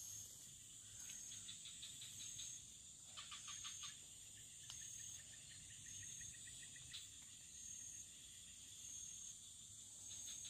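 Faint insect chorus: a steady high buzz, with a short high chirp repeating about once a second and two brief rapid trains of ticks, about one second and three seconds in.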